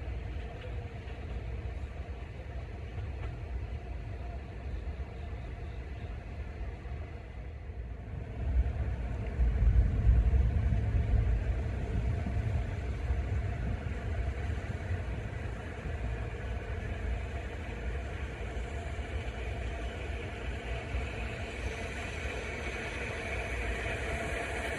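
Distant rumble of subway trains on the tracks, with a deeper rumble swelling about nine seconds in. Near the end a vintage BU gate-car train grows louder as it approaches.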